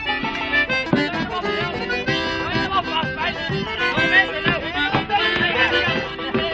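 Lively traditional folk tune played on banjo over steady held notes from a second instrument.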